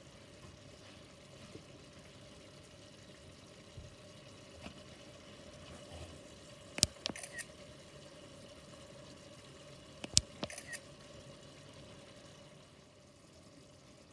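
Pot of beef, tomato and onion simmering quietly on the stove. Two short clusters of sharp clicks break in, about three seconds apart, each one loud click followed by a few smaller ones.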